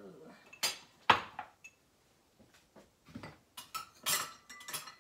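Kitchen clatter: hard items knocked and set down on the counter, with sharp clinks. The loudest knock comes about a second in, and a run of smaller clinks follows near the end.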